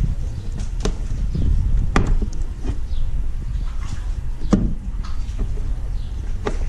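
Plastic storage-hatch lid on a Barracuda EVO fishing kayak being swung open and shut by hand, giving several sharp clicks and knocks, over a steady low rumble.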